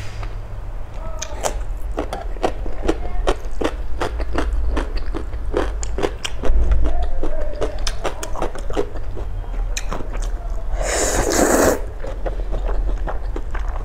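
Close-miked eating: wet chewing clicks and smacks throughout, then one loud slurp of black bean sauce noodles lasting about a second near the end, over a low steady hum.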